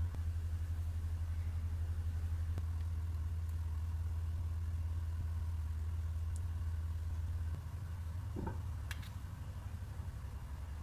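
A steady low machine hum that eases slightly about seven and a half seconds in, with a couple of light clicks from kitchen utensils near the end.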